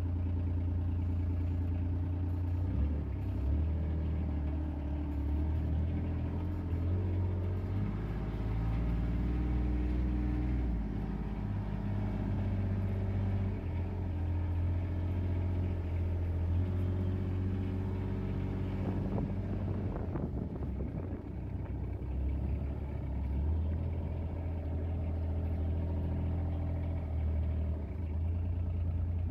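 Utility vehicle engine running, heard from inside the cab while driving slowly over a rough, muddy track; its low, steady hum shifts up and down in pitch every few seconds with the throttle.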